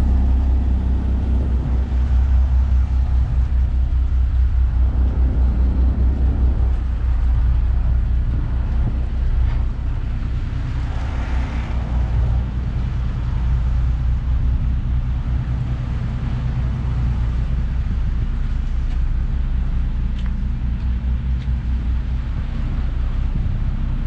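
Engine of a docked passenger ferry running at idle: a steady low throb with a fast, even pulse.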